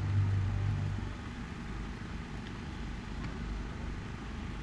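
Steady outdoor background noise at a fireworks viewing ground: an even low rumble and hiss, with a low hum from the public-address system dying away in the first second and a couple of faint distant ticks.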